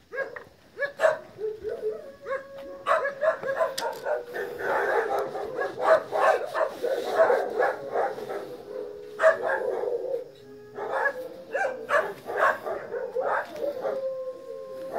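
Dogs barking over and over in quick, sharp barks, thickest through the middle of the stretch.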